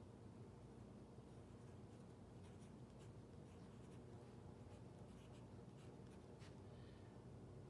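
Faint scratching of a fine-tipped pen writing on sketchbook paper in short, irregular strokes, over a low, steady room hum.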